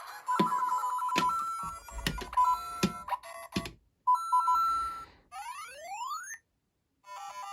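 Electronic game sounds from the Lego Super Mario interactive Peach figure's small speaker: quick beeping notes and short jingles with several knocks in between, then a run of rising sweeps about two-thirds of the way through, a brief silence, and a new beeping jingle near the end.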